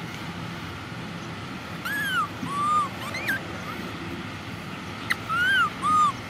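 Baby macaque giving short, high, arched cries in two bouts: three about two seconds in, then two more near the end.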